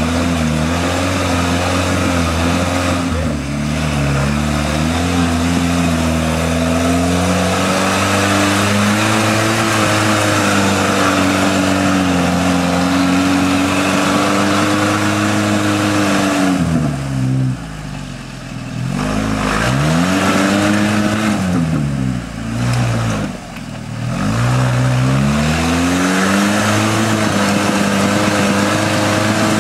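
Off-road truck engine working under load, its pitch rising and falling with the throttle. Twice past the middle it is let off and drops to a low idle for a second or two, then revs back up.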